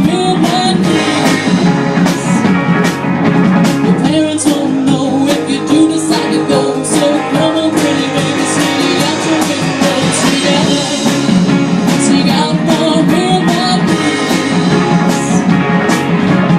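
Live rock-and-roll band playing, with a drum kit keeping a steady beat under electric guitar.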